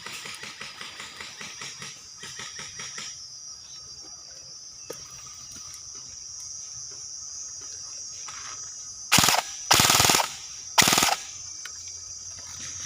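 Airsoft (BB gun) fire. A fast run of rapid shots plays for the first three seconds. Near the end come three loud full-auto bursts, the middle one the longest. A steady high insect buzz runs underneath.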